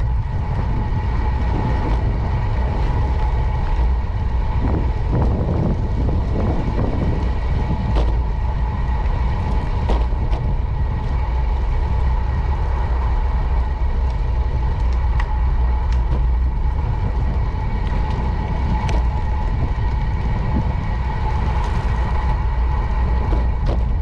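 Bicycle rolling along a paved path, heard as steady wind buffeting on the bike-mounted microphone and low tyre rumble, under a constant high hum. A few sharp clicks and rattles come from bumps in the path.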